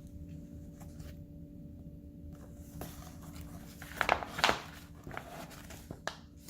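Soft rustling and light clicks from a model kit's papers and packaging being handled, with a louder burst of rustling about four seconds in, over a steady low hum.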